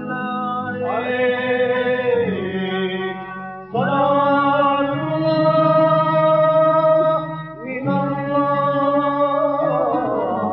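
A man singing a slow Aleppine funeral chant (tajwiq al-mayyit) in three long phrases of held, ornamented notes with gliding turns between them.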